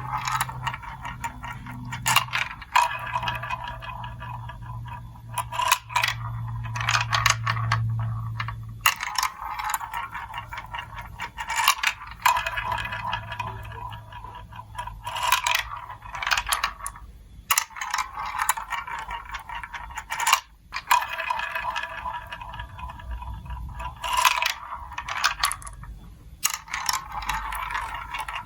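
Marbles rolling and rattling along the plastic tracks of a building-block marble run, in repeated runs of a few seconds, broken by frequent sharp clicks and clacks as they drop onto and knock against the pieces. A low hum runs under the first part.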